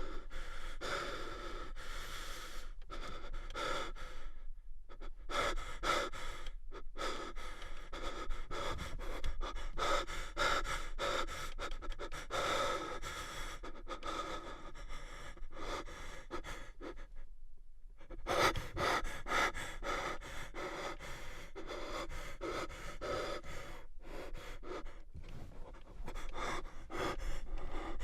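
A man breathing deeply and heavily, one breath after another, breaking off briefly a few times.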